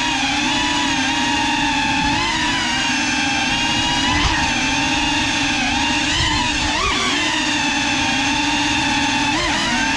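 FPV quadcopter's brushless motors whining steadily, the pitch jumping briefly up and down a few times with throttle changes as it flies.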